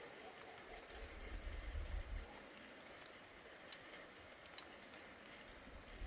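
Faint low rumble of distant thunder, swelling about a second in and dying away after about two seconds, over a steady soft hiss.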